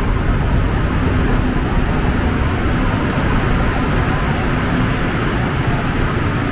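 Seoul Subway Line 4 train moving slowly alongside the platform as it pulls in, a steady rumble of wheels and running gear. A short, faint high squeal comes in about four and a half seconds in.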